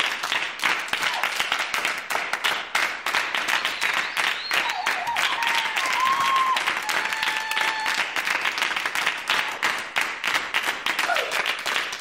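Audience applauding: a dense, steady patter of many hands clapping, with a few voices calling out over it in the middle and near the end.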